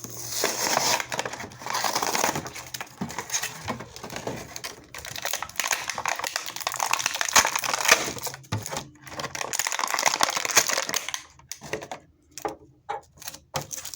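Toy packaging being torn open and handled, crinkling and crackling in irregular bursts as it is ripped apart.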